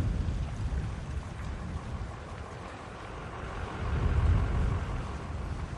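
Strong wind rumbling against the microphone over the steady rushing noise of a wind-driven wildfire. The rumble swells about four seconds in.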